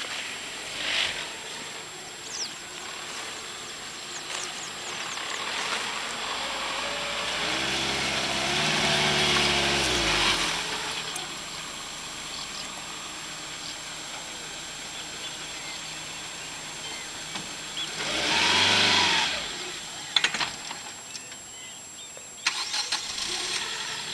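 Hyundai Tucson SUV working through loose sand: its engine revs up and pulls for a few seconds, then settles. About eight seconds later it gives a second short, hard rev as the wheels dig into the sand, followed by a few sharp clicks and knocks near the end.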